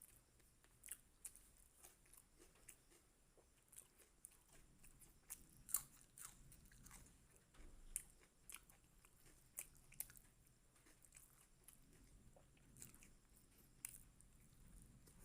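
Faint, close-up chewing and wet mouth clicks of someone eating chicken liver and gizzard curry with rice, in irregular sharp ticks with one louder click a little before halfway.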